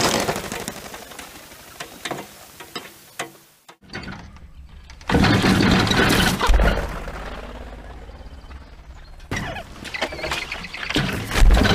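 Small wooden-and-wire bird crate being handled, with knocks and rattles near the end. There is a stretch of rushing noise in the middle.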